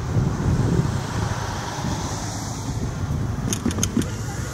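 Low, steady rumble of a steam locomotive approaching, with wind on the microphone. A few sharp ticks near the end.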